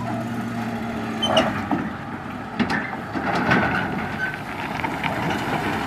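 Pickup truck towing an empty gooseneck flatbed trailer, its engine running steadily as it pulls across the road, with a few knocks and rattles from the rig.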